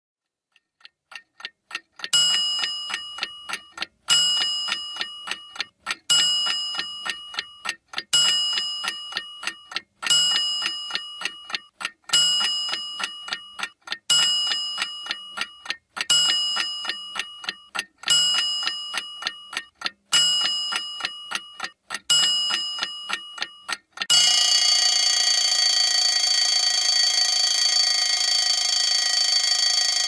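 Alarm clock ticking rapidly, the ticks fading in at first and then repeating in two-second stretches that each start loud and die away. About 24 seconds in the alarm goes off and rings continuously.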